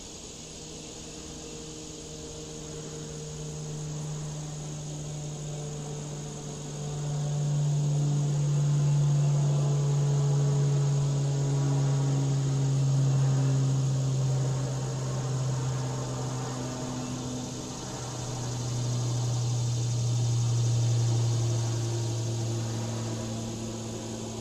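Insects trilling steadily at a high pitch, over a low droning hum that swells and fades twice.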